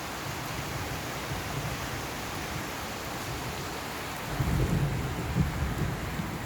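Steady rain hissing, with a low rumble that sets in about two-thirds of the way through and grows louder.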